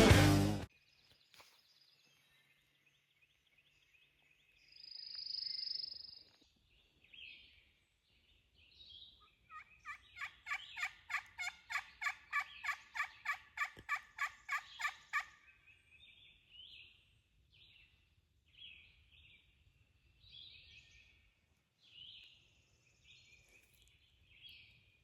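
A long, even run of turkey yelps, about four a second for some six seconds, with short high bird chirps scattered before and after.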